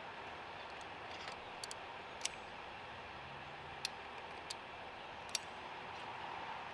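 A handful of sharp metallic clicks, irregularly spaced, from locking pliers clamping and working a battery terminal clamp on a newly installed car battery, over a steady hiss of outdoor background noise.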